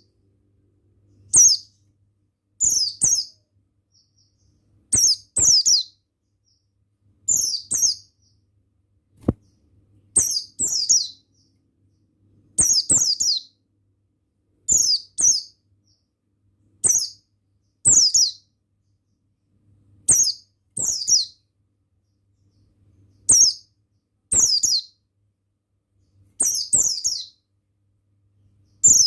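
White-eye (pleci buxtoni) calling: short phrases of high, quick, falling chirps, repeated about every two seconds with silent gaps between.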